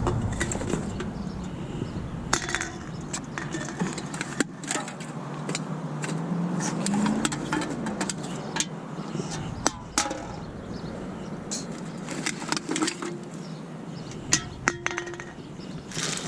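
Scattered clinks, clanks and rattles of carried litter, metal cans and jumper cable clamps knocking together.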